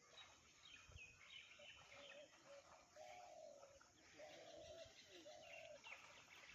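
Near silence with faint bird calls: a few high chirps, then three or four short calls of one pitch each.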